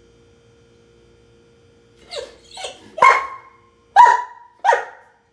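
Harlequin Great Dane barking: after about two quiet seconds, two softer woofs, then three loud barks roughly a second apart.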